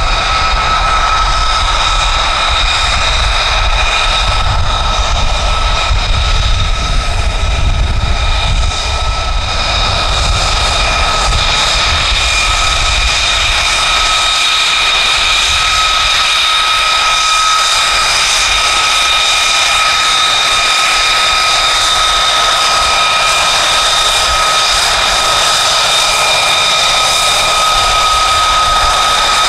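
F-35A Lightning II's single turbofan jet engine running at low taxi power, a steady high whine made of several even tones. A low rumble underneath fades away over the first ten seconds or so.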